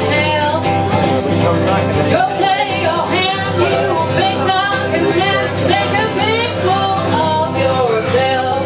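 Live country music: an acoustic guitar strummed in a steady rhythm under a singing voice.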